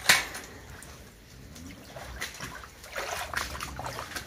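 A sharp metal clank from the wire kennel gate, then shallow floodwater splashing and trickling as it is stirred and stepped through in rubber boots.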